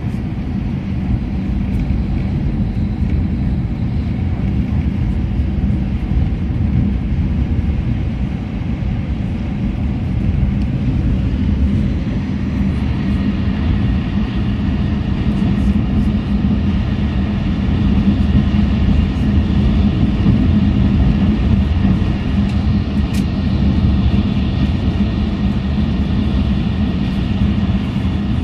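Steady rumble of an E6 series Shinkansen running at speed, heard from inside the passenger car, with a strong low hum. A faint high whine comes in about halfway and the noise grows a little louder.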